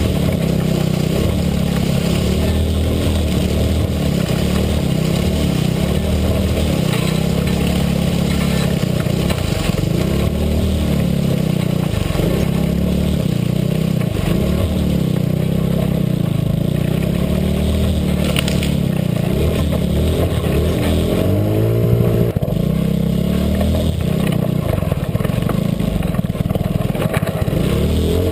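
Small gasoline lawn mower engine running steadily under load while cutting through tall weeds and brush, its pitch wavering as the load changes.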